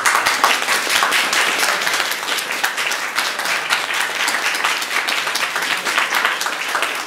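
A small audience applauding: many hands clapping together in a dense, steady patter.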